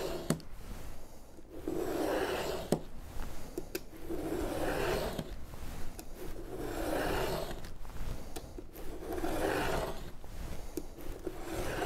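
Utility knife blade drawn along a ruler through thick binder's board, a scraping cut about every two seconds, about five strokes in all. The board is being cut by hand in many repeated passes.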